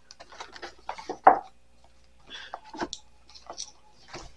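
Small household items being handled and set down while sorting: light rustles, clicks and knocks, the loudest a sharp knock about a second in.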